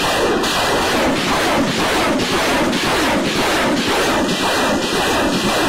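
BM-21 Grad multiple rocket launcher firing a salvo: rockets leaving in rapid succession, a loud continuous roar with about three pulses a second that cuts in suddenly.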